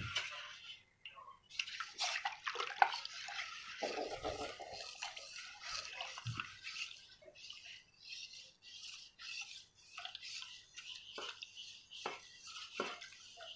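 Wooden spoon stirring a thin liquid agar-agar pudding mixture in an aluminium pot: irregular sloshing and swishing of the liquid, with a few sharp knocks.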